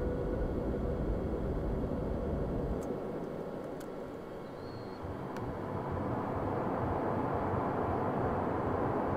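Ambient pad played from a looped grocery-store field recording in Ableton Live's Simpler, run through ping-pong delay and reverb: a dense noisy wash with little clear pitch. Its texture shifts as the sample's start point is moved: the low end drops out about three seconds in, and the sound dips before swelling back after about five seconds.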